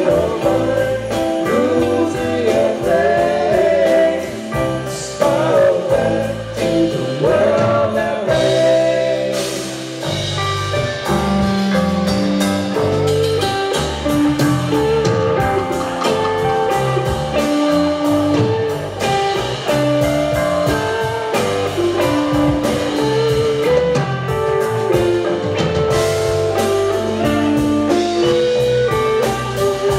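Live band playing loudly on stage: electric guitars, bass and drum kit. A lead line bends and wavers in pitch through the first several seconds, then the drums settle into a steady beat under held chords.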